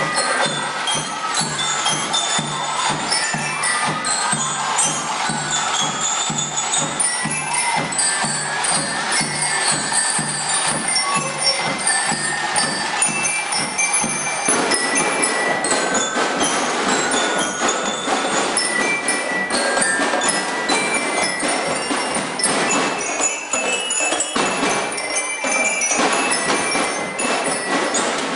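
Drum and lyre marching band playing: bell lyres ring out the melody over a steady marching drum beat. The sound fills out about halfway through.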